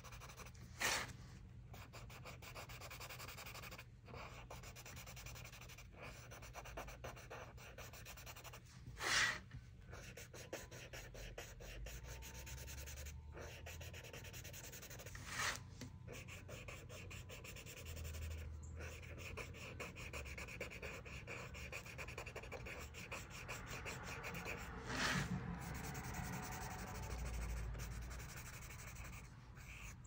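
Paper blending stump rubbing graphite shading into a sketchbook page in quick, soft strokes, with a few brief louder scuffs.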